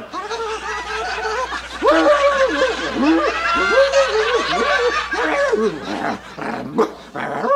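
Audience laughter: many people laughing together, thinning out near the end.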